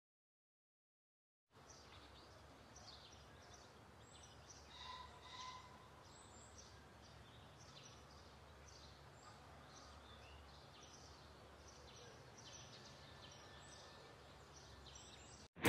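Faint outdoor nature ambience with small, high bird chirps scattered through it, starting after a second or so of silence.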